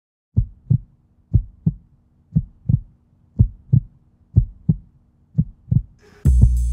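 Heartbeat-like sound effect: pairs of low thumps, about one pair a second. Near the end, loud music with a beat comes in.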